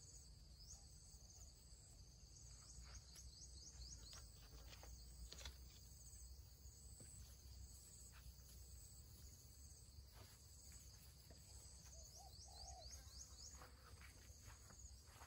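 Near silence: faint outdoor ambience with short runs of high, quick rising chirps from small wild creatures and a low steady hum.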